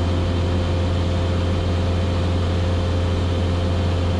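Cessna 172S's four-cylinder Lycoming IO-360 engine and propeller droning steadily in cruise flight, heard inside the cabin: a strong low hum with a fainter steady higher tone above it.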